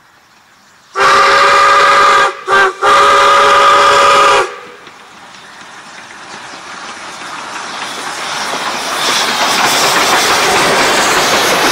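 Steam locomotive 621's whistle sounding several tones at once in a long blast, a short one and another long one. Then the train's hiss and running clatter build steadily louder as it approaches and passes.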